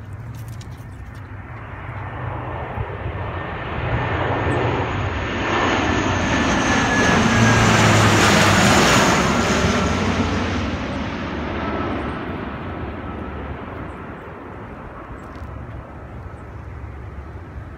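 Lockheed C-130 Hercules four-engine turboprop flying low overhead. Its engine noise builds steadily, is loudest about halfway through and then fades, with a high whine dropping in pitch as the aircraft passes.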